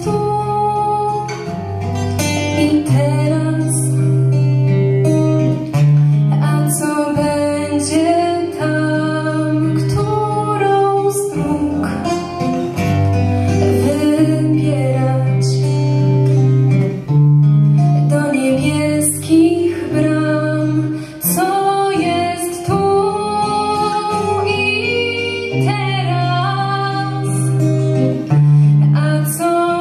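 A woman singing a slow, gentle song, accompanied by an acoustic guitar playing a steady line of bass notes and chords, performed live.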